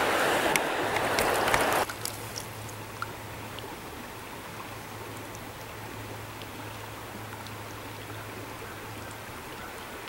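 Trout stream water rushing, loud for about the first two seconds and then dropping suddenly to a quieter, steady flow with a low hum under it.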